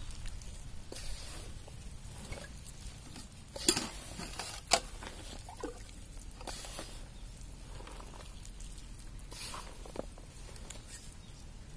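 Hand squishing and tossing ivy gourd pieces in a thick flour and spice coating in a metal mixing bowl: irregular soft rustling and squelching, with a few sharper clicks about four and five seconds in.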